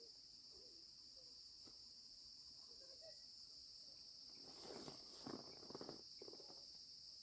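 Faint, steady high-pitched insect chorus. A short spell of rustling about four and a half seconds in lasts roughly two seconds.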